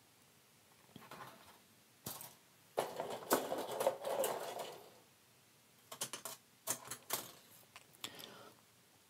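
Plastic model-kit sprues being handled and swapped: rattling, rustling and clicking of the light injection-moulded plastic. There is a busier rustling stretch about three seconds in, then a run of sharp clicks toward the end.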